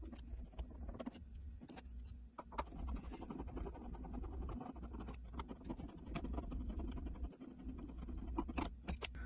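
Light scraping, tapping and clicking of hands and tools working at a wall light switch, over a low steady hum.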